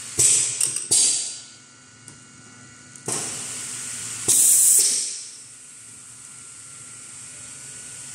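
Pneumatic cylinders of a semi-automatic labelling machine firing. There are about four sharp hisses of released air, each starting with a click, and the loudest and longest comes about four seconds in. A faint steady machine hum runs underneath.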